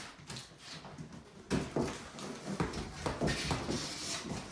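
Handling noises of the emptied cardboard mattress box being carried off and set down: irregular knocks, scuffs and rustles starting about a second and a half in, with footsteps on a wooden floor.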